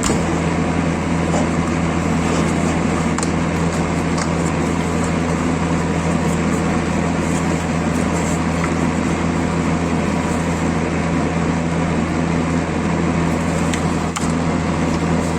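An electric power tool running steadily: a constant low motor hum over an even hiss, with scattered light ticks.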